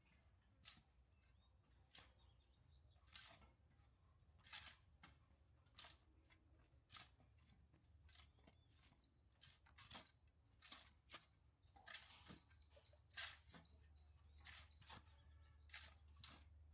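Faint, sharp clicks at an uneven pace of about one a second, over a low steady hum.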